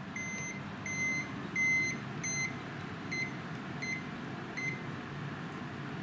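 Digital clamp meter beeping about seven times, roughly one beep every 0.7 seconds, the later ones shorter and fainter: its warning that it is about to switch itself off to standby.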